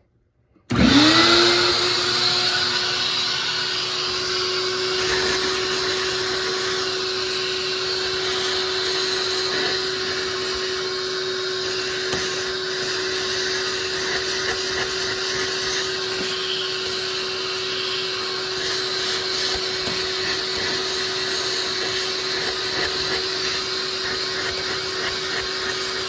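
Wet/dry shop vacuum starting up under a second in, its motor whine rising quickly to a steady pitch, then running steadily while its hose nozzle sucks out the drain pump filter housing of a front-load washing machine.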